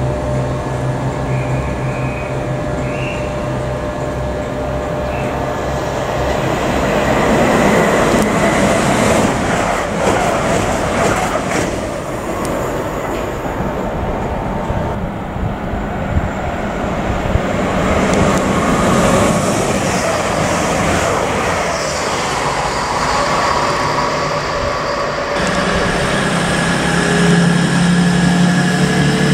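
Class 180 Adelante diesel multiple unit at a station: a steady low engine hum, then the broad rumble of train and rail noise building as a train runs through. Near the end, after a sudden change, the diesel underfloor engines drone steadily at low speed.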